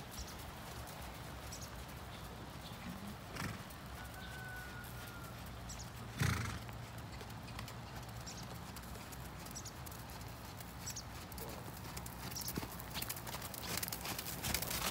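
Ridden horse's hooves clopping steadily over the ground, with one louder short sound about six seconds in.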